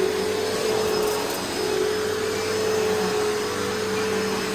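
Hoover Elite Rewind upright vacuum cleaner running steadily, a constant motor whine over a rush of air.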